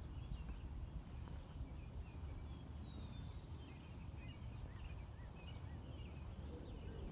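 Small birds chirping and twittering many times over, short high calls scattered throughout, over a steady low rumble.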